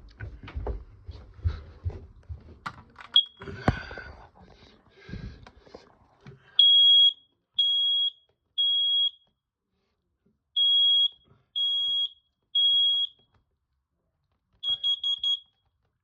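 A run of clicks and knocks with one short chirp, then a smoke alarm's piezo sounder going off in the temporal-three pattern: three beeps, a pause, three more beeps. A quick run of four short beeps comes near the end.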